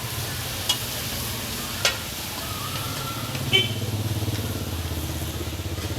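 Bột chiên (rice-flour cake pieces) sizzling in oil on a giant frying pan, over a steady low hum. A metal spatula clinks against the pan three times; the third clink is the loudest and rings briefly.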